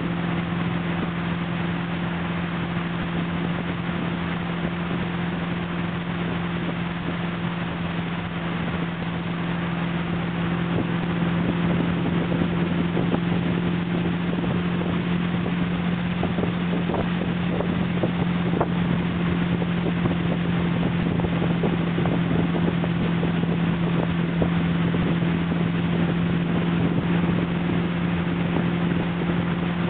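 Motorboat engine running at a steady speed with a constant drone, under wind on the microphone and water noise. It gets a little louder about eleven seconds in.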